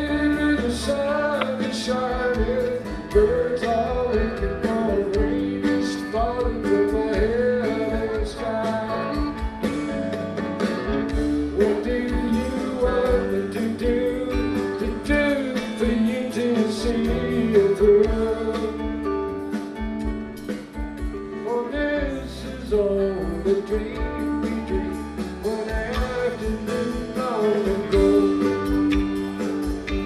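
Background music led by guitar, with a melody line that slides up and down in pitch.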